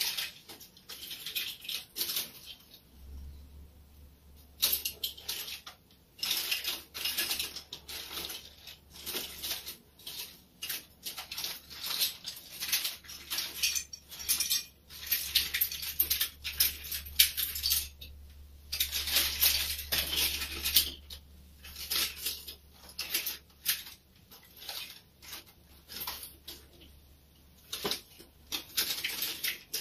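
Small plastic toys and pieces being handled and set down: irregular clicks, clatters and rustles, over a faint low hum that starts a few seconds in.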